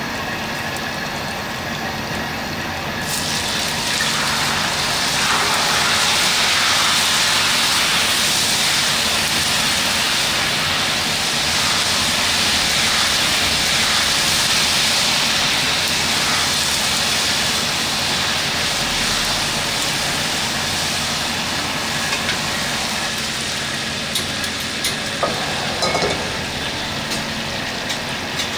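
Squid teeth deep-frying in a wok of hot oil: a loud sizzle starts suddenly about three seconds in and eases off over the last several seconds, over the steady roar of the gas burner. A few sharp metal clinks come near the end.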